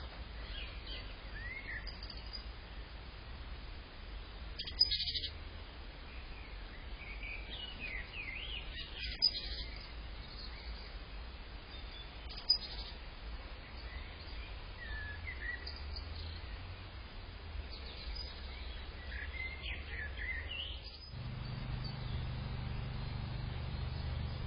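Small garden birds chirping, with short scattered calls throughout and three sharp clicks along the way. About three seconds before the end the birds stop and a steady low hum takes over.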